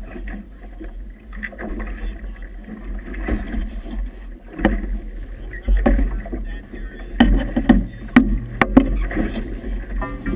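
Wind buffeting the microphone over choppy water slapping and splashing against a boat's hull. Several sharp knocks come near the end.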